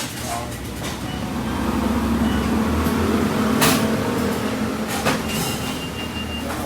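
Steady low mechanical rumble with a hum in it, swelling about two seconds in, with a few scattered clicks and a faint steady high tone in the second half.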